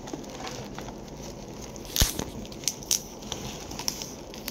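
Parcel packaging being picked and torn open with fingernails: a sharp snap about two seconds in, then a few lighter clicks and crinkles.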